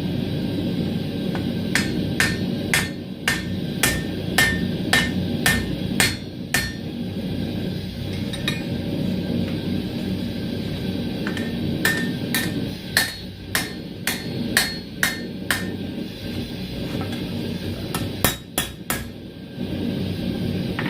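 Hand hammer striking hot steel bar on an anvil to adjust the bends of forged tongs: three runs of ringing blows, each about two a second, with a short quick flurry near the end. A steady low rumble runs underneath.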